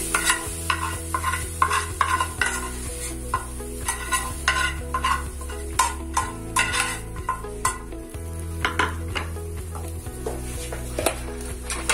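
Metal spoon scraping and tapping against the inside of an aluminium frying pan, repeated strokes a couple of times a second, as fried onion-tomato masala is scraped out. A steady low hum runs underneath.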